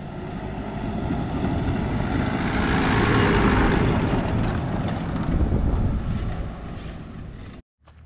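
Nissan Patrol 4WD driving past on a sandy dirt track: the engine and tyres grow louder as it approaches, are loudest about three seconds in, then fade as it moves away, and the sound cuts off abruptly just before the end.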